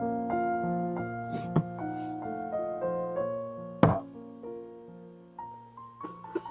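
Background piano music with gently changing held notes. A sharp knock sounds about four seconds in, with a lighter one earlier and a few soft clicks near the end.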